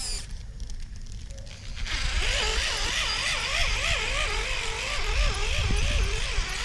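Electric motor and drivetrain whine of an Axial Capra RC rock crawler, starting about two seconds in, its pitch rising and falling over and over as the throttle varies.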